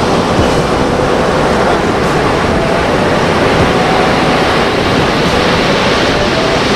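Ocean surf breaking on a sandy beach: a steady, loud wash of waves.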